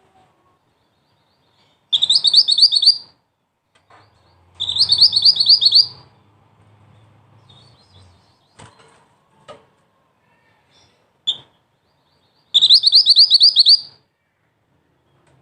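Mantenan (scarlet-backed flowerpecker) calling in three high, rapid trills of about ten quick notes each, each lasting about a second, with a single short note shortly before the last trill.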